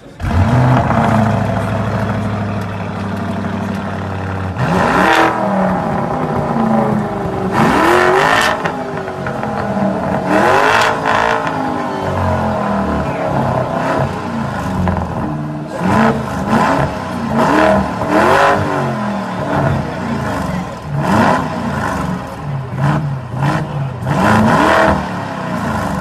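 Lamborghini Urus twin-turbo V8 idling, then revved again and again while standing still, each blip rising sharply and falling back to idle. The blips come a few seconds apart at first, then quicker and closer together after the middle.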